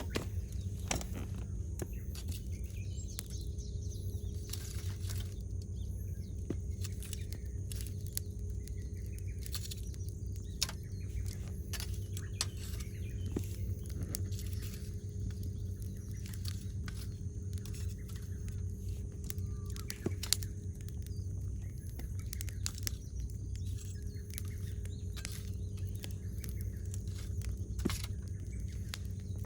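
Wood campfire crackling, with frequent sharp pops and snaps at irregular intervals over a steady low hum.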